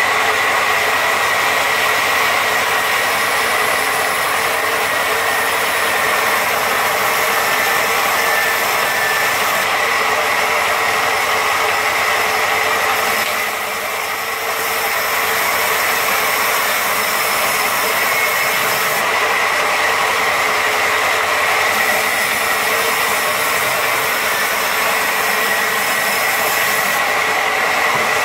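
Large sawmill band saw running and cutting lengthwise through a log: a steady, loud mechanical noise with a constant high whine, briefly quieter about halfway through.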